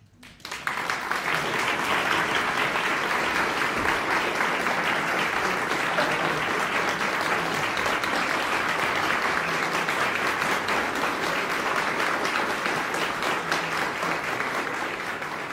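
Audience applauding, breaking out suddenly about half a second in and holding steady, easing off slightly near the end.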